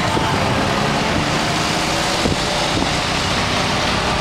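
Motor scooter riding through street traffic: steady engine and road noise, with wind on the microphone.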